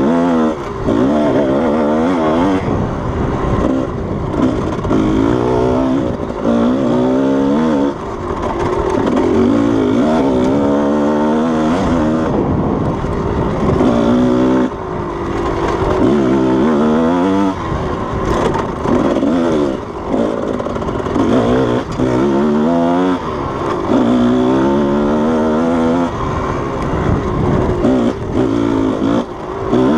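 Kawasaki KDX220 two-stroke dirt bike engine being ridden hard on a trail, its pitch climbing with each burst of throttle and dropping off between, about ten times over the stretch.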